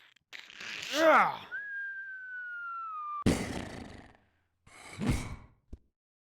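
Mouth-made sound effects: a noisy whoosh with a falling pitch, then a long whistle gliding slowly downward, cut off by a sudden crash-like burst about three seconds in, and another short burst near the five-second mark.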